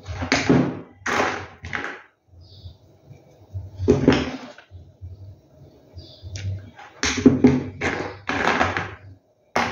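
Handling noise from small gravel stones and a hot glue gun on a tabletop: short scrapes and knocks in irregular bursts, the loudest about four seconds in and a quick run of them near the end.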